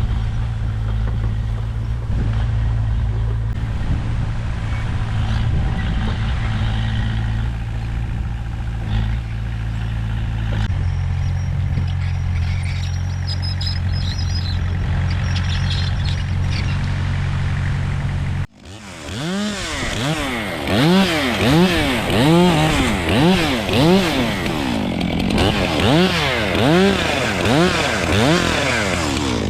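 Komatsu bulldozer's diesel engine running steadily, settling to a lower speed about a third of the way through. After an abrupt cut, a small engine revs up and down over and over, about once a second, with a steady low engine sound still underneath.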